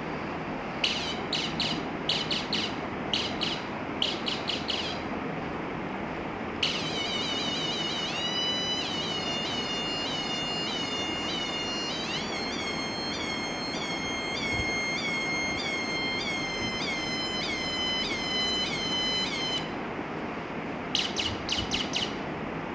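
Electronic sound effects generator circuit making synthesized bird-like chirps in short groups, then a sustained, repeatedly pulsing electronic tone that steps up in pitch partway through and later stops, followed by more chirps near the end. A steady hiss runs underneath.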